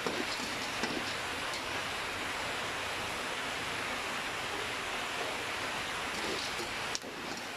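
Popcorn kernels sizzling in hot oil in an aluminium pot, a steady hiss, with a few light scrapes and clinks of the metal spoon stirring them; the kernels have not started popping yet.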